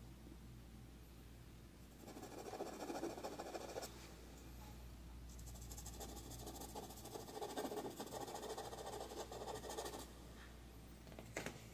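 Soft pastel stick scratching across paper in short back-and-forth strokes, faint, in two spells, with a small click near the end.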